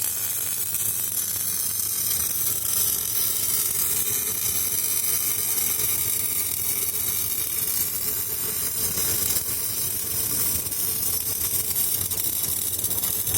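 MIG welding arc burning steadily as a bead is run on a pipe-to-flange joint: a continuous sizzling, crackling hiss over a steady low hum.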